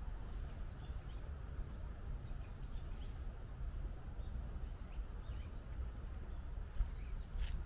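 Outdoor park ambience: faint, scattered bird chirps over a steady low rumble, with one sharp click near the end.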